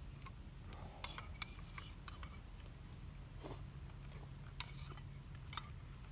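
Utensils clinking and tapping against metal camp cookware: a quick run of light clinks about a second in, then two sharper clinks near the end, over a low steady background rumble.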